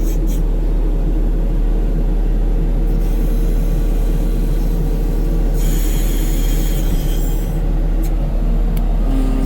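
Skid steer engine running steadily, with a high hissing squeal for about two seconds in the middle.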